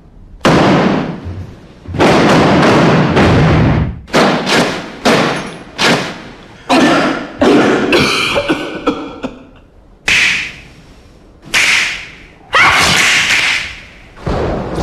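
Loud, echoing stomps and thuds from a group dance routine: about a dozen heavy hits at uneven spacing, each ringing on briefly.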